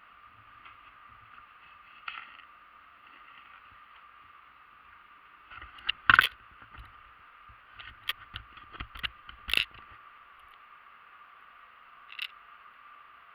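A handful of sharp knocks and clatters over a steady hiss. The loudest comes about six seconds in, a cluster of them falls between eight and ten seconds, and single ones come near the start and near the end.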